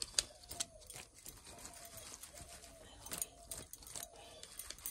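Sharp clicks and knocks from a red plastic colander of small river fish being handled and shaken over a plate. A faint short animal call repeats about five times behind it.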